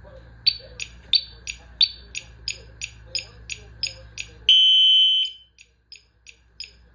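WSDCAM e-bike alarm and turn-signal unit's electronic beeper ticking about three times a second. A little past halfway it gives one loud steady beep lasting under a second, then a few fainter ticks.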